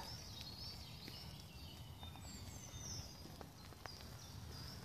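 Faint woodland birdsong, short whistled phrases repeating every second or so, over a low steady background noise, with a few faint clicks.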